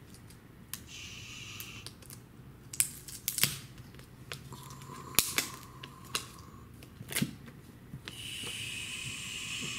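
Fingers picking at the pull tab and flaps of a glossy white cardboard Apple Watch box: a string of sharp clicks and ticks of card, with two short stretches of scraping as card rubs on card, about a second in and again near the end.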